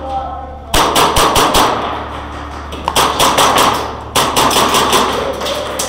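Airsoft guns firing rapid automatic bursts, a fast clatter of shots. There are three long strings, starting just under a second in, about three seconds in and about four seconds in.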